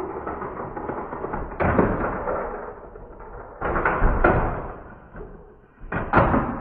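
Slowed-down, muffled clatter of plastic toy playset pieces running through a chain reaction: a low rumble broken by heavy thuds, one about a second and a half in, two around four seconds, and a cluster near the end.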